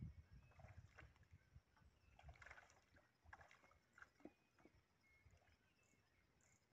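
Near silence, with faint small splashes and knocks of water: a hooked fish struggling at the surface as it is pulled in on the line.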